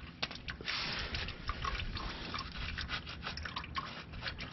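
Engine oil draining in a thin stream from a car's oil pan drain hole into a drain pan, trickling with many small splashes and drips. The stream is thinning toward the end of the drain.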